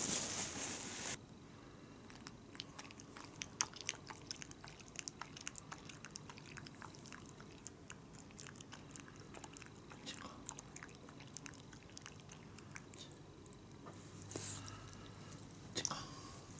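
An old Shiba Inu lapping water from a plastic bowl: a long run of small, irregular wet clicks. A loud hiss in the first second cuts off abruptly.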